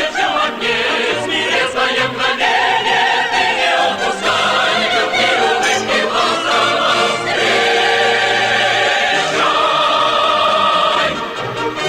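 Operetta-style song with full orchestra and a choir singing.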